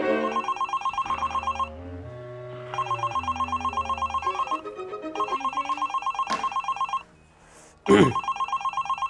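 Mobile phone ringing with a trilling electronic ringtone: four rings of about a second and a half each, with short gaps between them. Soft background music plays under the first rings, and a brief loud falling swoosh comes just before the last ring.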